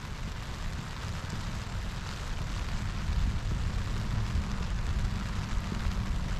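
Steady rain falling, an even hiss over an unsteady low rumble.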